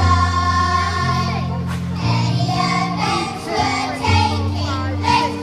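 Children's school choir singing with amplified instrumental accompaniment, a bass line moving note by note under the voices.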